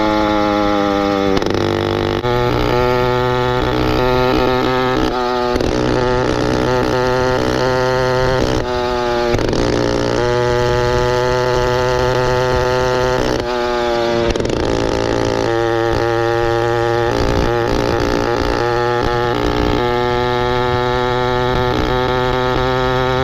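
Motorized bicycle's small engine running, its revs rising and falling over and over, with a few short drops in pitch between steadier stretches.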